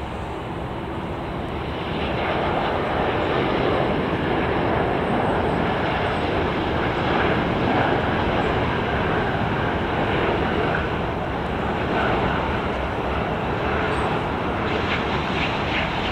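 Airbus A350-1000 airliner on final approach with gear down, its two Rolls-Royce Trent XWB-97 turbofans giving a steady rushing jet-engine noise that grows louder about two seconds in.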